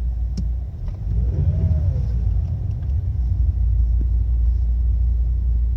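Ford Mondeo Mk4 2.0 diesel heard from inside the cabin, its rumble swelling as the throttle is pressed about a second in, with a faint whistle that rises and then falls in pitch. It is the strange noise that appears only on the gas, which the owner hears coming from the car's speaker with the head unit switched off. A single click sounds just before.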